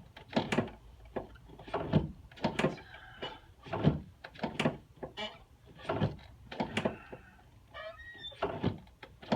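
An irregular series of knocks and thuds, about one or two a second, from a chiropractor's hands and adjusting table as he works on a patient lying face down.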